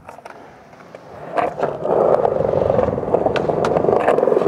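Skateboard wheels rolling on concrete, building up from about a second in and then holding steady and close, with a few light clicks from the board.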